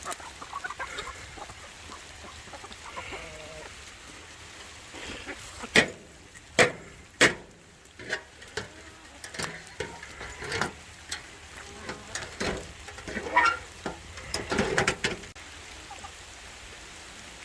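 Chickens clucking over a steady patter of rain, with a few sharp knocks.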